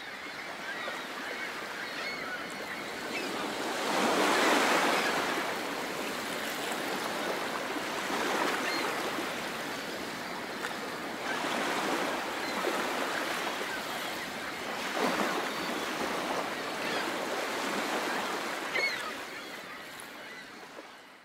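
Surf breaking on a beach, the wash swelling and ebbing in surges, loudest about four seconds in, with faint short calls of seabirds over the water. It fades out near the end.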